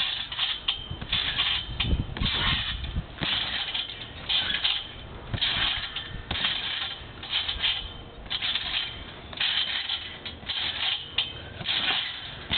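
Trampoline springs creaking and squeaking in rhythm with the bounces, about once or twice a second, with dull thuds as feet land on the mat.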